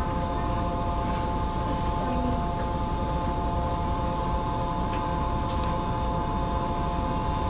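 Yokohama Municipal Subway 3000A train car: a steady electrical hum of several fixed tones over a low, even rumble, with no rise or fall in pitch.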